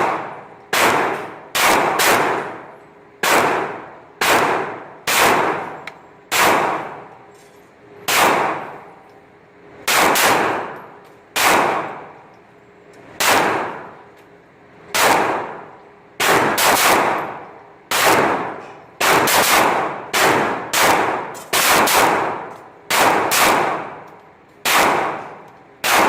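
Gunfire in an indoor shooting range: about two dozen shots at a slow, uneven pace, a few in quicker pairs, each ringing and echoing off the walls as it fades. Mostly 9mm pistol fire from a Smith & Wesson Sigma SW9VE fired slowly, since rapid fire is not allowed there.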